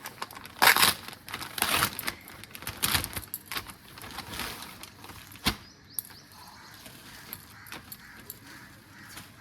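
Parcel packaging and cloth rustling as a sweater dress is taken out and shaken open: several loud rustles in the first three seconds, a sharp click about halfway through, then quieter handling.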